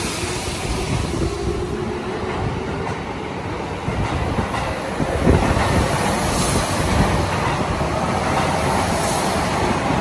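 Tokyo Metro Tozai Line electric train running along an underground station platform, a continuous steady rumble of the moving train.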